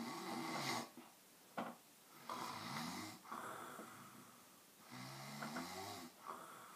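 Snoring: three snores, roughly two and a half seconds apart, each a noisy breath with a low wavering buzz.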